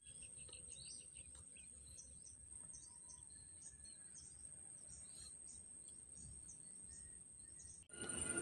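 Faint natural ambience: a steady high insect trill with scattered short bird chirps over a low rumble of wind. Near the end it cuts abruptly to a louder mix of birds and insects.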